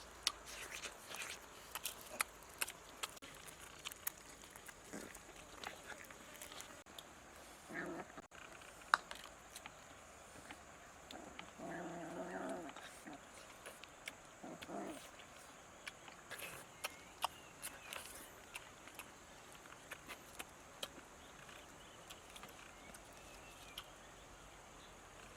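A dog growling a few times, with the longest growl near the middle, amid scattered small clicks.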